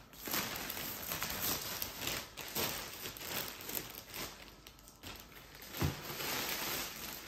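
Plastic packaging bags crinkling and rustling irregularly as they are handled, with one soft thump just before six seconds in.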